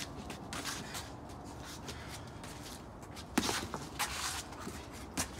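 Feet shuffling and scuffing on a concrete floor during boxing sparring, with a few sharp slaps of boxing gloves landing, the loudest about three and a half seconds in and a few more about a second later.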